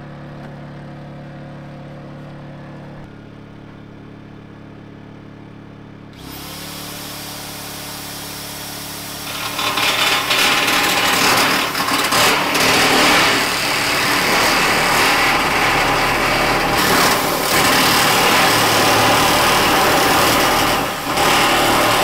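A steady low hum, then about six seconds in a corded Makita electric nibbler switches on and spins up. From about nine seconds in it runs loudly as it punches its way along a cut line in a corrugated metal roofing panel, dipping briefly near the end.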